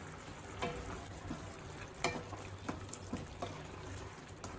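A pan of chicken keema gravy cooking: a faint sizzle with scattered short pops and clicks, the loudest about two seconds in.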